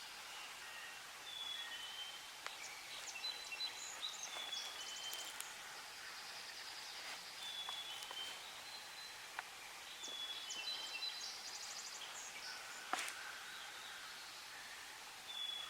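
Songbirds singing in the spring woods: a short two-note whistle repeats every few seconds, with higher trills between, faint overall. A single sharp click stands out late on.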